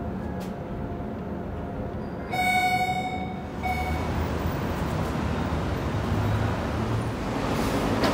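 Steady rumble and hiss of the Roosevelt Island Tramway's aerial tram. A pitched tone sounds about two seconds in for just over a second, then briefly again a second later.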